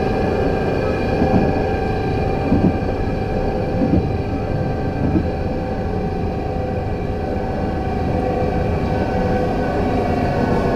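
Alstom Citadis 302 tram in motion, its traction drive giving off a steady whine of several high tones over a running rumble, with the pitch sagging near the end. Four short knocks come about 1.3 s apart in the first half. This is the strange noise from the motor car that the uploader is asking about.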